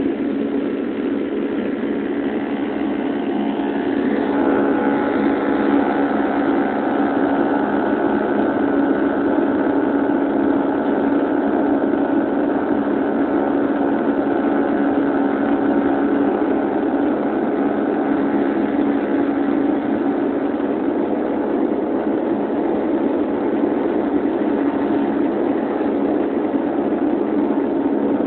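Steady propeller and engine drone of a De Havilland Canada Dash 8 turboprop heard from inside the cabin in flight, a low hum with a set of higher tones that grow stronger about four seconds in.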